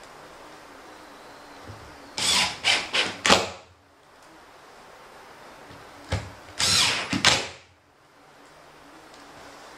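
Cordless drill-driver driving screws into the wooden bed frame, run in two bouts of several short trigger pulses each, about four seconds apart.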